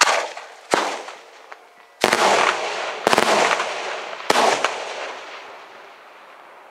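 Daytime salute fireworks shells exploding overhead in a morning 'diana' display. About five loud sharp bangs come roughly a second apart, some as quick double or triple cracks, and each trails off in a long rolling echo.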